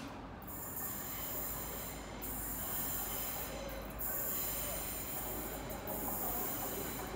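GWR Hitachi Intercity Express Train approaching the platform slowly round a curve: a steady train noise that grows a little louder as it draws in.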